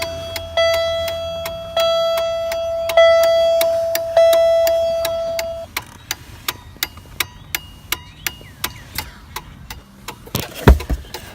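The dashboard warning chime of a 1999 Pontiac Grand Prix sounds about four times, each a steady tone that fades before the next strike, over regular clicking. After about six seconds the chime stops and the new turn-signal flasher relay clicks on alone, evenly at about two clicks a second, the blinkers now flashing properly. A loud thump comes near the end.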